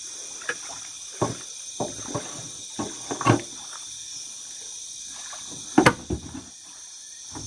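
Irregular knocks and splashes of a small boat being brought in to the riverbank, the loudest a sharp knock about six seconds in, over a steady night chorus of insects.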